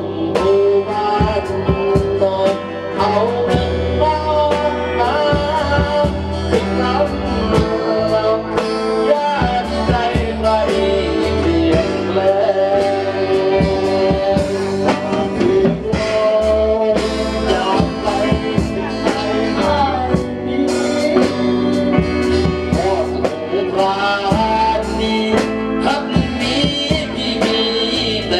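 A band playing with a singer: a wavering sung melody over plucked guitar, a bass line and a regular drum beat.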